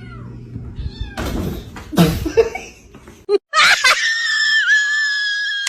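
Cat fight: a noisy scuffle with a sharp burst about two seconds in, then a long, high-pitched cat cry held steady for about two seconds.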